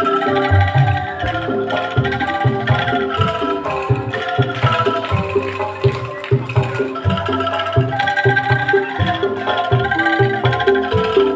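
Angklung ensemble playing a melody, the bamboo tubes shaken into rattling pitched notes, over a low percussion beat.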